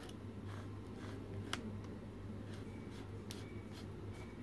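Faint clicks and rubbing from the Viltrox EX-NEX electronic adapter's extension ring being twisted by hand to release its macro extension. There is a sharper click about one and a half seconds in and two more near the end, over a low steady hum.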